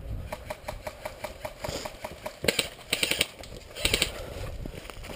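Airsoft guns firing: a fast, even run of sharp clicks, then louder rattling bursts about halfway through.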